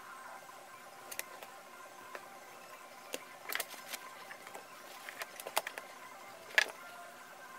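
Scattered light clicks and taps of hand tools and leather pieces being picked up, handled and set down on a cutting mat, the sharpest one near the end.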